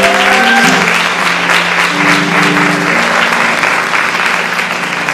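Audience applauding, a dense steady clapping, with a few sustained low musical notes held underneath.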